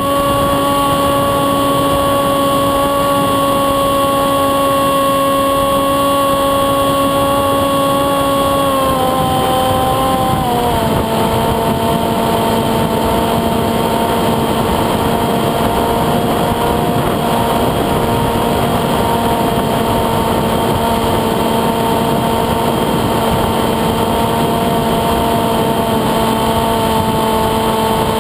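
Electric motor and propeller of a Windrider Ele-Bee2 foam flying wing running steadily, a high hum over rushing air. About nine to eleven seconds in, the pitch steps down as the throttle is eased back, then holds steady at the lower pitch.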